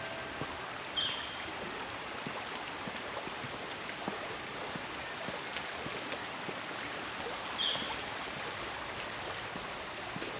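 Creek water running steadily, with a bird giving a short high call about a second in and again some seven seconds later.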